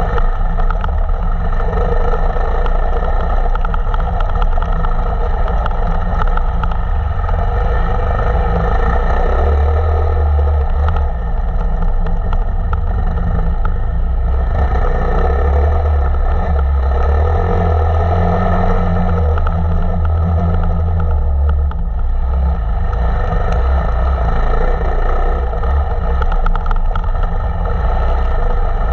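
KTM 525 EXC single-cylinder four-stroke enduro motorcycle engine running hard off-road, its note rising and falling as the throttle opens and closes.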